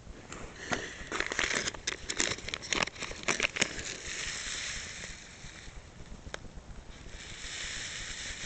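Plastic bag of oat flakes crinkling in quick sharp crackles for the first few seconds as it is handled, then a softer steady rustle as oats are poured into the metal pot.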